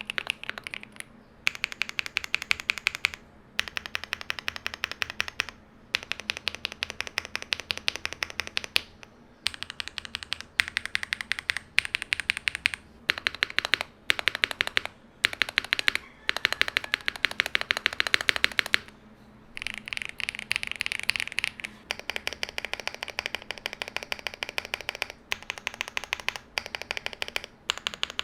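Fully modded MonsGeek M1 V3 mechanical keyboard with factory-lubed Green Fog linear switches, doubleshot PBT keycaps and a polycarbonate plate, being typed on fast. The keystrokes come in runs of one to four seconds, with short pauses between them.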